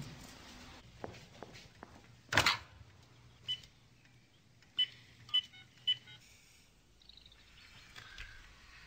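Four short electronic beeps spaced unevenly over about two and a half seconds, after a brief, louder noise burst a couple of seconds in.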